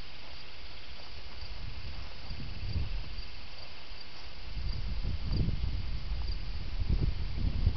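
Crickets chirping steadily in a high, pulsing trill, under a low rumble of wind on the microphone that comes in gusts from about five seconds in.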